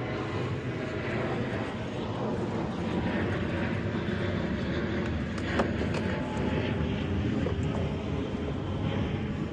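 A machine running steadily with a low drone, and a light click about halfway through.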